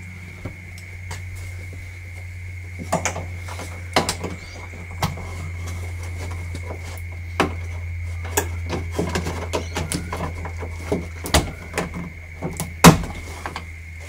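Irregular clicks and knocks of hand work on a Toyota Previa's front door handle and latch mechanism as it is taken apart, the sharpest knock near the end, over a steady low hum.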